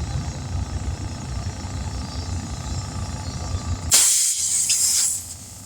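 Steady low hum of a running air compressor, then about four seconds in a loud hiss of compressed air lasting just over a second while a tire is being inflated past its target pressure through the open valve stem.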